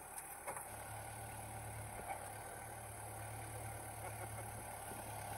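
Compact tractor's diesel engine running steadily as its front loader bucket pushes dirt; the low engine hum firms up about a second in and holds.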